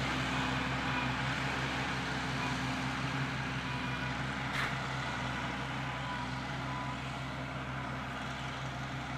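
1953 Oliver 88 six-cylinder diesel tractor engine running steadily and smoothly, without the usual diesel rattle, slowly getting quieter. A single brief click about four and a half seconds in.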